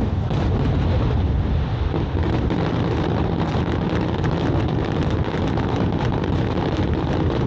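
Aerial fireworks going off in a dense, continuous barrage: booms running together with a steady crackle.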